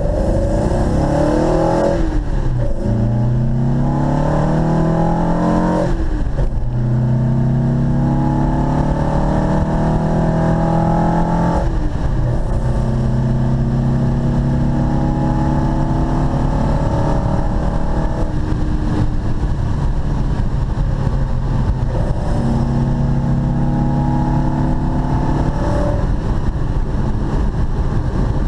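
Porsche 914's 2.0-litre air-cooled flat-four, running on Megasquirt 2 injection through 40 mm individual throttle bodies, heard from inside the cabin while driving. The revs climb and drop through three upshifts in the first twelve seconds, then hold a steadier cruise with a few gentle rises and falls of throttle.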